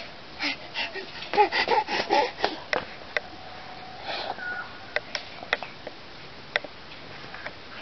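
Asian palm civet feeding from a steel plate: a quick run of sharp clicks and clinks in the first three seconds, mixed with a toddler's brief babbling, then scattered single clicks as the civet keeps eating.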